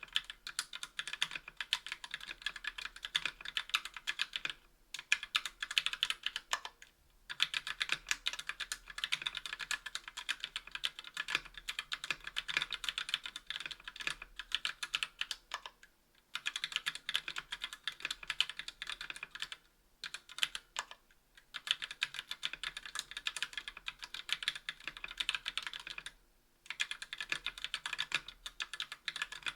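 Fast typing on a KBDfans Tofu60 aluminium mechanical keyboard with TTC Gold V2 Red linear switches and GMK keycaps: a dense run of clacking keystrokes, breaking off for brief pauses every few seconds.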